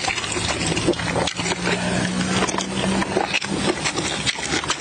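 Close-miked chewing and lip-smacking: wet smacks and clicks come quickly, one after another, as stewed beef nose is eaten by hand. A low steady hum runs underneath from about a second in until about three and a half seconds.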